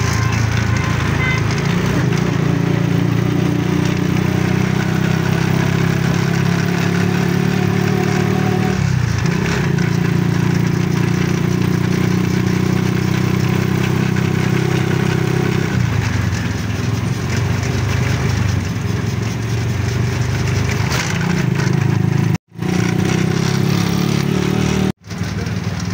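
Small engine of an open motor rickshaw running steadily while riding, its note shifting a couple of times as the speed changes. The sound cuts out briefly twice near the end.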